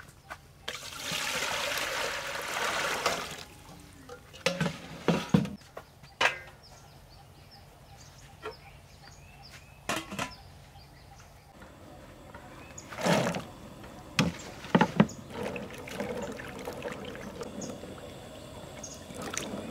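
Water poured from a metal bowl into a large aluminium pot, a loud rush lasting about three seconds. Then scattered metal clanks as the pot and its lid are handled on a gas burner. Near the end, soft splashing as peeled garlic cloves are stirred by hand in a bowl of water.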